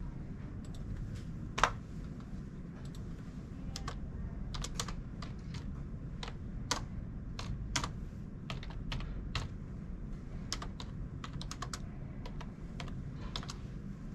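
Typing on a computer keyboard: irregular keystroke clicks, one louder click about two seconds in, over a low steady room hum.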